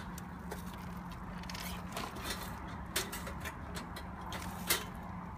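Stainless steel wire rack of a small portable fish smoker box clicking and rattling against the box as it is handled: a handful of sharp metallic clicks, the loudest near the end, over a steady low hum.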